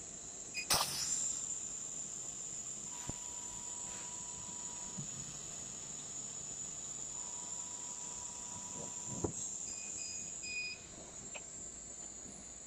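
600 W CO2 laser cutting machine running while it cuts thick acrylic: a steady high-pitched whine over a hiss, with a couple of sharp clicks.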